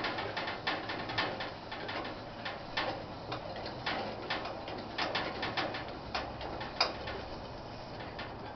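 Coleman 413-H white-gas camp stove burner, just lit, burning with a steady hiss and many irregular crackling pops that thin out and fade near the end.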